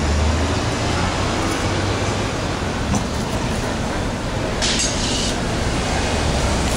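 Steady city street traffic noise, with a low vehicle rumble at the start and a brief hiss about two-thirds through.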